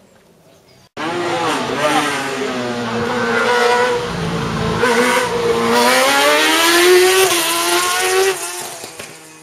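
Racing car engine revving hard, its pitch rising and falling again and again as it is driven through a slalom of cones. It comes in suddenly about a second in, then drops away and fades near the end.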